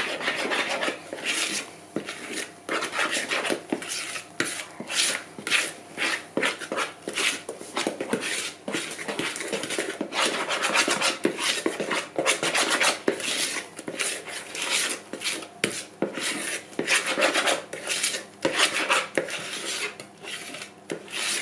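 A kitchen utensil scraping and stirring through cake batter in a plastic measuring jug, in quick repeated strokes: beaten egg whites being folded gently into sponge batter.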